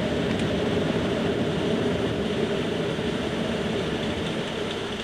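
Steady airflow rush on Concorde's flight deck while the droop nose and visor are being raised, easing off gradually over the last couple of seconds as the visor closes and streamlines the nose.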